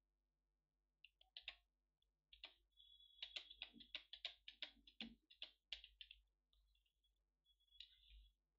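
Computer keyboard keys tapped in a quick run of clicks, a few scattered taps at first, then a dense burst in the middle, then a couple more near the end.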